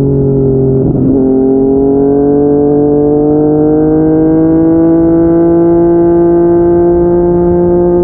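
Yamaha MT-09's three-cylinder engine through a Yoshimura R55 slip-on exhaust, under way: it shifts up a gear about a second in, then the engine note climbs steadily as the bike accelerates.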